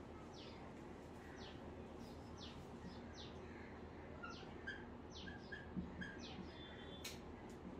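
Faint bird chirping: many short calls sweeping quickly downward in pitch, repeated every half second or so, with a single sharp click about seven seconds in.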